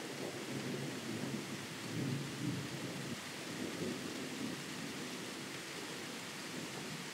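Distant thunder: a low, rolling rumble that swells about one to four seconds in and then fades, over a steady hiss.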